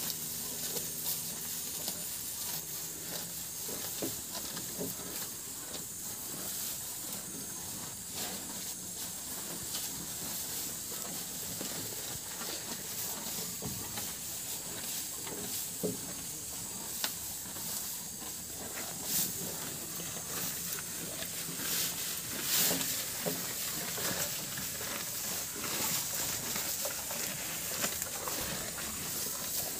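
Cows tearing and chewing fresh-cut grass at a feed trough: a run of irregular crunching and rustling clicks over a steady high hiss.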